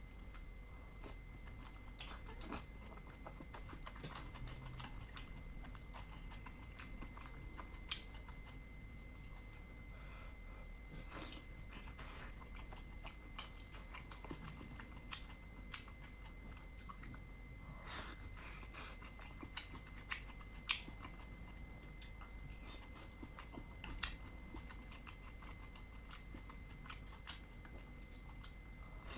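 Close-up chewing and biting of dumplings: soft mouth noises with irregular sharp clicks and smacks.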